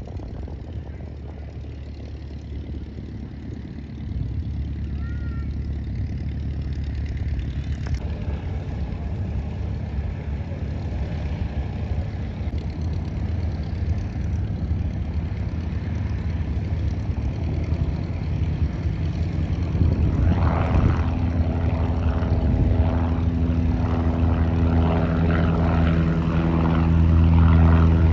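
Small propeller airplane's piston engine running, growing steadily louder as the aircraft comes closer, with a strong, even engine drone near the end.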